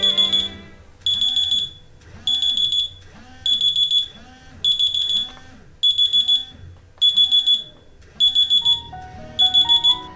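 Mobile phone alarm beeping: a high electronic tone in bursts a little over a second apart, each burst a quick run of beeps, nine bursts in all.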